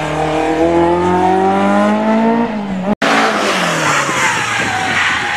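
A racing car's engine accelerating hard, its pitch rising steadily for about three seconds. After a brief cut, another car is heard, louder and rougher, its engine note falling as it goes by.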